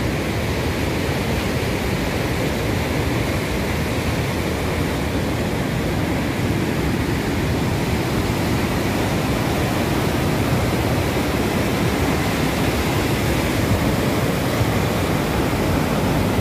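Loud, steady rushing of the Bhagirathi (the Ganga at Gangotri) in flood, its swollen, muddy current running fast.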